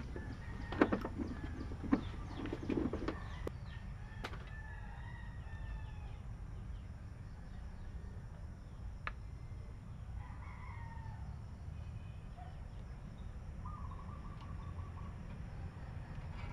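A rooster crowing more than once, with other chicken calls, over a steady low hum. A few sharp clicks and knocks come in the first three seconds.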